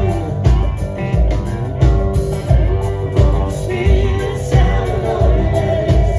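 Live rock band playing, with guitar over a steady kick-drum beat of about three beats every two seconds.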